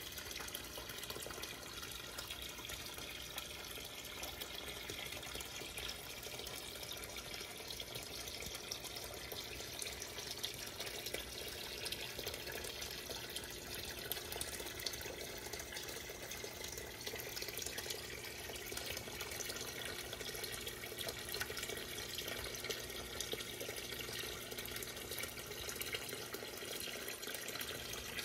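Steady stream of water pouring from a small pond pump's outlet into the pond, splashing and bubbling where it hits the surface.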